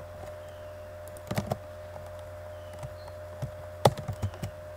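Computer keyboard keys clicking in short, irregular runs of typing, with the loudest keystroke near the end, over a steady low electrical hum.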